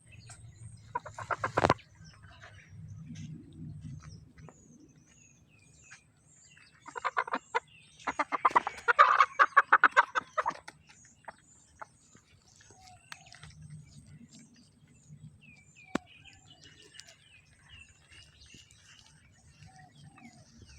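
Animal calls: a short bout of loud, rapid pulsed calls near the start and a longer one from about seven to ten seconds in, with faint short chirps between.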